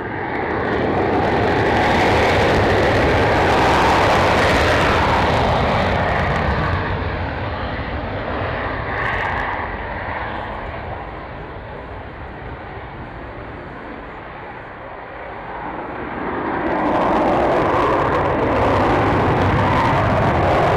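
Eurofighter Typhoon jet engines at takeoff power, a loud roar that eases off through the middle and swells again near the end.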